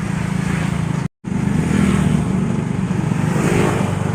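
Motorcycle engine running steadily. The sound cuts out completely for an instant about a second in.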